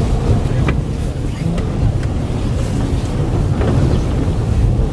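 A vehicle running and moving along, with a steady low rumble of engine and road noise.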